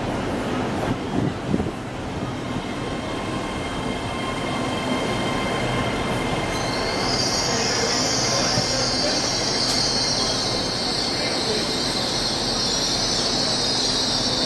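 A Great Western Railway Intercity Express Train rolling slowly along the platform, its wheels and underfloor equipment making a steady rumble. About six and a half seconds in, a loud high-pitched wheel squeal starts and holds to the end.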